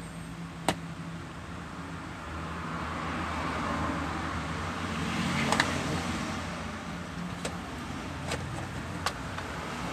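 A road vehicle passing by, its noise swelling to a peak about five seconds in and then fading, over a steady low hum. A few sharp clicks stand out against it.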